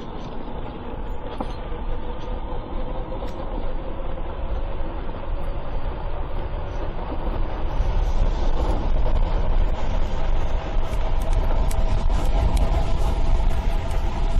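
Wind rushing and buffeting over the microphone of an electric bike at full throttle, growing steadily louder as the bike picks up speed during a top-speed run. A faint steady whine from the e-bike's motor runs under it.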